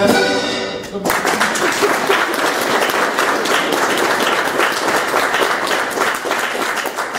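A sung song with instrumental accompaniment ends about a second in, and an audience breaks into applause that goes on to the end.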